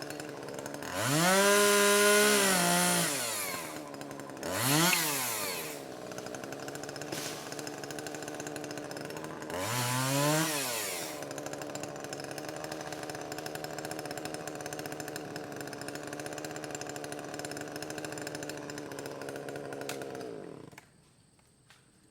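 Chainsaw engine idling, revved up three times, the first rev held for about two seconds, then shut off about 21 seconds in.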